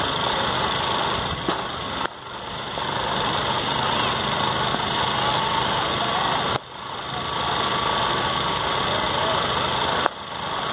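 Sharp knocks of a cricket bat striking the ball, three loud ones roughly four seconds apart, over a steady background hum and faint distant voices.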